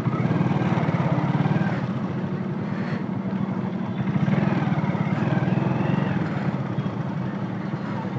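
A 125cc single-cylinder motorcycle engine running steadily as the bike rolls along at low speed.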